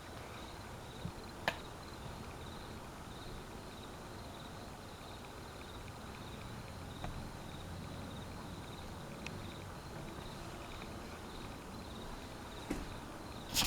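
52-inch Hampton Bay Gazebo II ceiling fan running with a steady whir and a faint, even pulsing. A sharp click comes about a second and a half in and another near the end.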